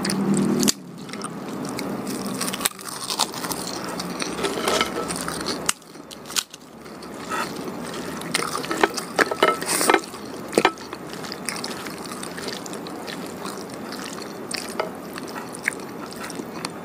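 Close-up chewing and mouth sounds of someone eating pecel sayur (blanched vegetables, tofu and rice cake in peanut sauce) by hand: irregular wet smacks and clicks while chewing, with a louder low sound stopping under a second in.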